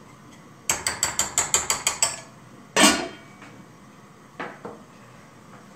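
A quick run of about ten sharp ratchet-like clicks, then a single louder metal clank and a lighter knock as cookware is handled on a portable gas stove.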